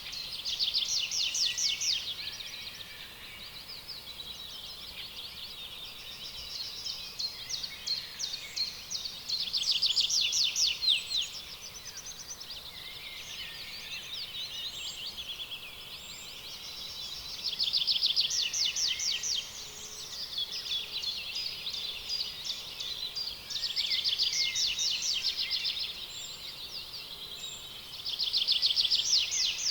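Songbirds singing in a spring forest: constant chirping and twittering, with a loud, fast trilled song phrase of one or two seconds coming again about every six to eight seconds, five times in all.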